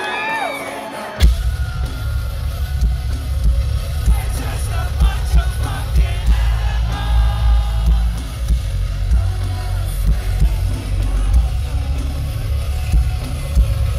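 A metalcore band playing live: after a second of crowd voices, the full band with distorted guitars, bass and drums crashes in suddenly and carries on as a loud, heavy, steady groove, with a heavy, boomy low end, heard from within the audience.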